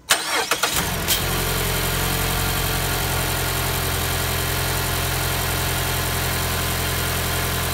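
A 2016 Mazda CX-5's engine being started on a freshly installed battery: the starter cranks briefly, the engine catches about a second in and settles into a steady idle.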